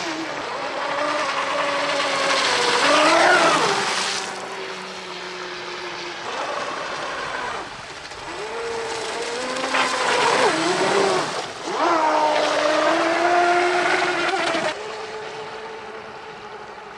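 ProBoat Blackjack 29 RC catamaran speed boat's 1800kv brushless electric motor whining at speed on a 4S LiPo, over a hiss of spray. Its pitch keeps sliding down and back up as the boat runs and turns. Near the end it drops to a quieter, steadier whine.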